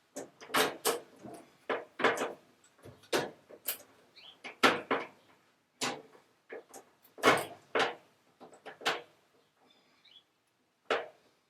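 A series of irregular knocks and clunks, about a dozen short hits at uneven spacing with a quieter gap near the end.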